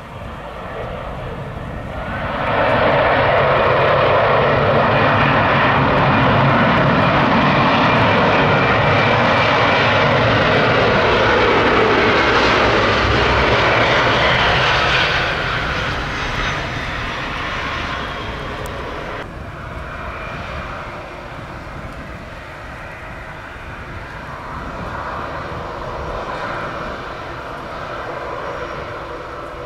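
An Airbus A319's twin jet engines spool up to takeoff power about two and a half seconds in and run loud and steady for some twelve seconds on the takeoff roll. The sound then fades, drops off sharply near the twenty-second mark and leaves a lower, distant rumble.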